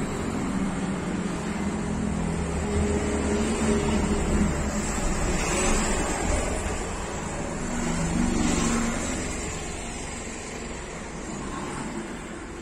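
Road traffic close by: a motor vehicle's engine running with a steady low hum. The noise swells again about eight seconds in, then fades toward the end.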